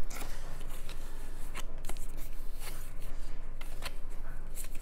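Printed game cards and paper inserts being handled and sorted, a light rustling with scattered small clicks and slides, over a faint low hum.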